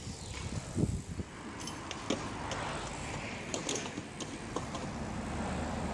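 Steady outdoor hum of traffic, with a few short knocks and clicks from bikes and scooters on the skatepark's concrete.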